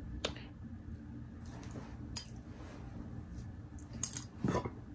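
Cutlery clinking against a plate or dish while eating: two sharp clinks about two seconds apart over quiet room background, with a short softer sound near the end.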